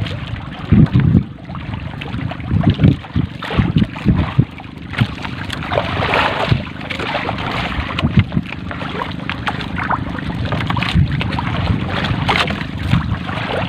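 Wind buffeting the microphone in gusts and water splashing against the side of a small fishing boat as a wet trammel net is hauled in by hand over the gunwale.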